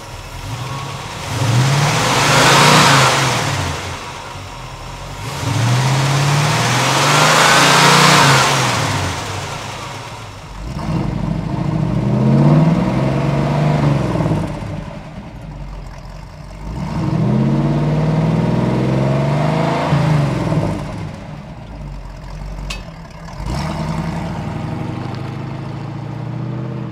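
Chevrolet 350 small-block V8 crate engine in a 1963 Chevy Nova revved twice, then pulling away and accelerating in two long pulls, its pitch rising and falling with each. It settles lower near the end.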